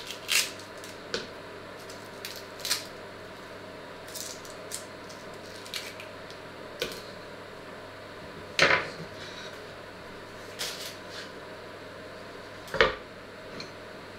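Small kitchen knife clicking and tapping on a wooden chopping board as an onion is peeled and cut: scattered short taps, with two louder knocks, one a little past halfway and one near the end.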